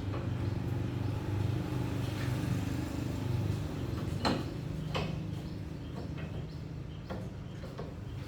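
A steady low mechanical hum, with four sharp knocks in the second half.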